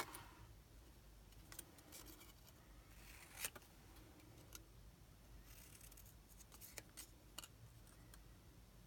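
Faint handling of cut paper strips being picked up and laid down on a card: a few soft clicks and rustles, the clearest about three and a half seconds in.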